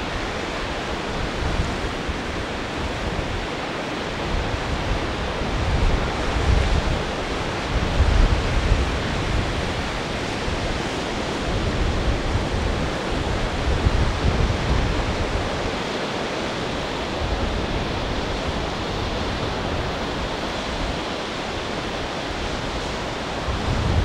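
Wind buffeting the microphone in irregular low gusts over a steady rushing noise.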